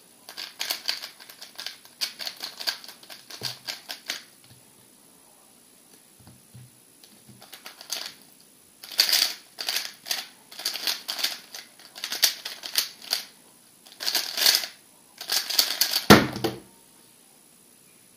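MoYu RS3 M 2020 3x3 speedcube being turned fast: rapid plastic clicking of layer turns. About four seconds of clicking while it is scrambled, then, after a pause, a burst of about seven seconds while it is solved, ending with a thump.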